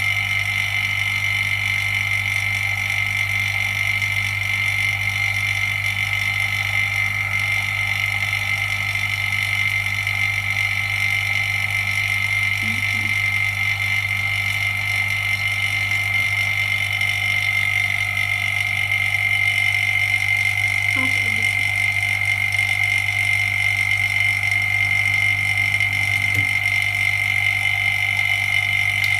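Steady electrical machine hum with a constant high-pitched whine over it, unchanging throughout. A few faint knocks and a click come from handling near the middle and towards the end.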